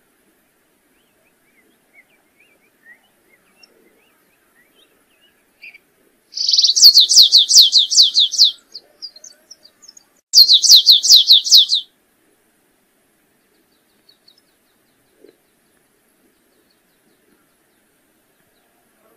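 Canário-rasteiro (stripe-tailed yellow finch) singing: two quick trills of repeated down-slurred notes, about six notes a second, the first about two seconds long and the second about a second and a half, with a few faint chirps between them.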